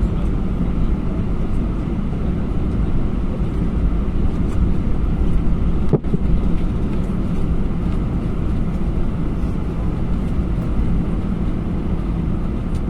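Steady cabin noise of an Airbus A321-212 with CFM56-5B engines under power: the engines and rushing airflow make a low, even noise heard from a rear window seat. There is a brief click and dropout about halfway through.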